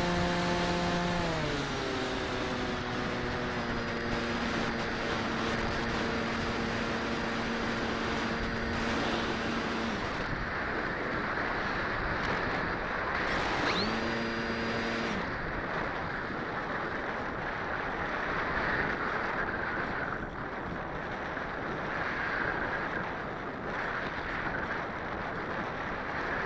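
Wind rushing over the onboard microphone of a Skywalker 1900 RC plane, with the hum of its electric motor and propeller. The motor's pitch drops about a second in, holds steady, and stops about ten seconds in; it comes back briefly for a second or so around fourteen seconds, leaving only the wind.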